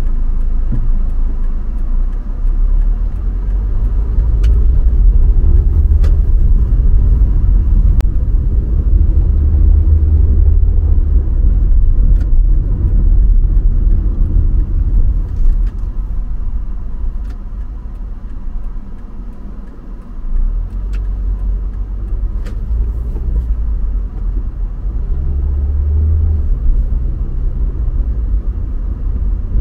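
Car driving on city roads: a continuous low rumble of engine and road noise that eases for a couple of seconds around the middle and then builds again, with a few faint clicks.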